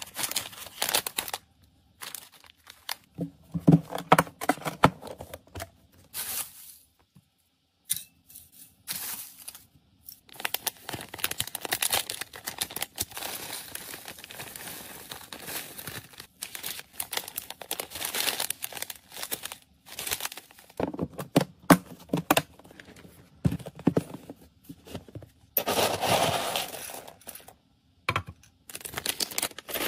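Plastic food bags crinkling and being torn open, with dry cat kibble and dried greens poured out and clattering into plastic containers. It comes in separate bursts with short pauses between.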